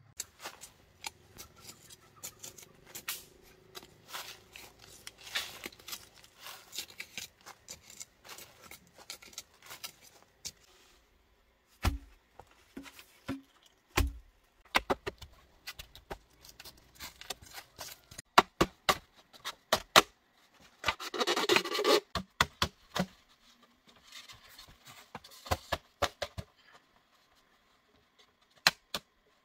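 Handwork with bamboo poles and hand tools: many sharp clicks and taps, a few dull thumps about twelve and fourteen seconds in as a bamboo post is set into a dug hole, and a rough scraping rustle a little past the middle.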